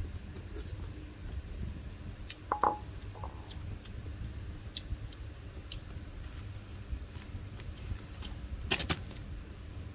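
A ceramic bowl clinks once with a short ringing tone about two and a half seconds in, and a quick cluster of knocks and clicks follows near the end, over a low steady rumble.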